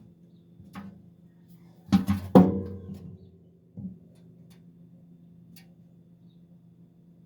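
Microwave oven humming steadily, with a few sharp knocks: one about a second in, a loud rapid cluster about two seconds in, and one more near four seconds.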